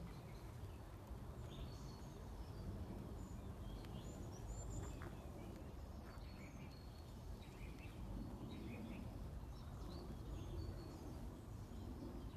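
Outdoor garden ambience: faint, scattered short bird chirps over a low, steady background rumble.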